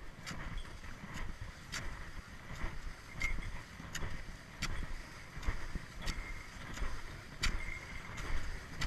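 Cross-country skis sliding and crunching over crusted spring snow, with sharp clicks from the poles and skis about once or twice a second in the rhythm of the strides.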